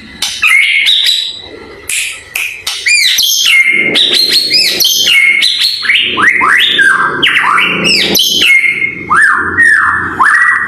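White-rumped shama singing a fast, varied song of arching, sweeping whistles and sharp clicking notes; sparse for the first few seconds, then a continuous, loud stream of phrases.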